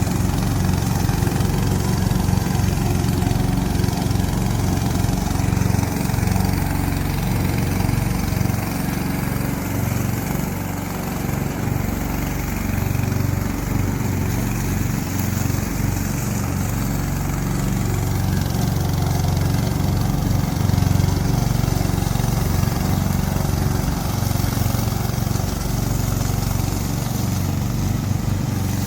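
Engine of a remote-control lawn mower running steadily, its level holding even with only slight changes.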